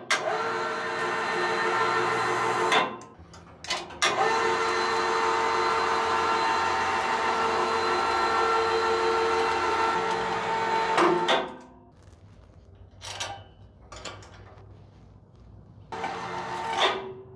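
Electric winch motor of a homemade elevator running with a steady hum as it hauls the car up the shaft. It stops for about a second near 3 seconds in, runs again, and cuts off just after 11 seconds at the point where the new top limit switch stops the lift. A short sound follows near the end.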